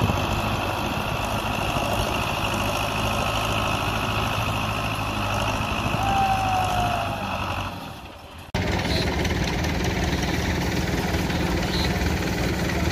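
Belarus tractor's diesel engine running steadily, fading out about eight seconds in; after an abrupt cut, another tractor diesel engine runs steadily.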